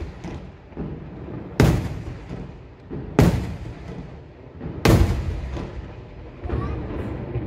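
Aerial firework shells bursting overhead: three loud bangs about a second and a half apart, each trailing off over a second, then a softer bang near the end.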